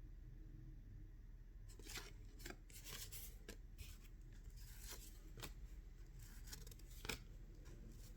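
Faint handling of thin cardboard trading cards: short flicks and slides as the cards are shuffled one behind another, starting about two seconds in.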